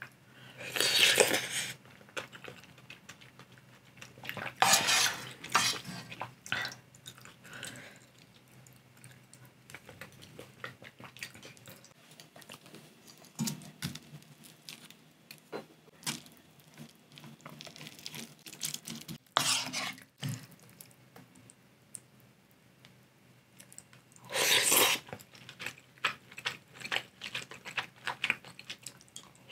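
Eating sounds over a pot of ramyeon: a wooden spoon knocking and scraping in the pot as rice is mixed into the broth, with several loud, short slurps of noodles and broth, about a second in and again near the end, and quiet chewing.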